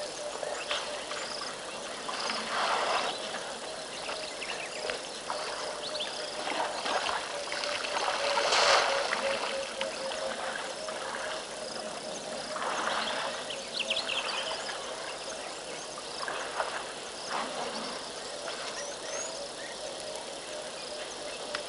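Outdoor sound with a steady low hum, like an idling vehicle engine, under several short bursts of noise. The loudest burst comes about nine seconds in.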